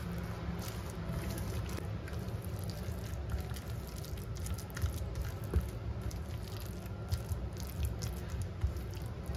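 Silicone spatula stirring and pressing a wet mash of tofu, egg and chopped sweet potato leaves in a stainless steel bowl: soft irregular squishing with light scrapes and taps against the bowl.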